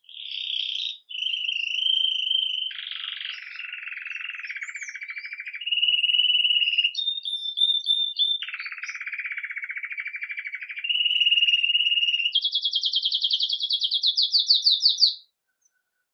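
Red mosaic agate canary singing a long campainha (bell) song. Clear, held high notes alternate with lower rolling trills, and the song ends in a fast, high trill that stops about fifteen seconds in.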